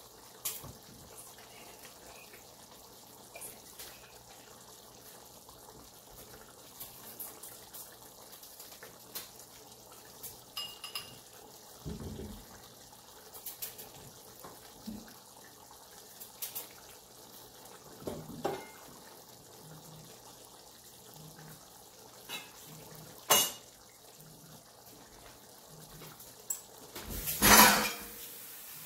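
Pot of chicken curry simmering: soft, scattered bubbling and popping over a low steady background. A sharp click comes a few seconds before the end, and a louder noise about a second long comes near the end.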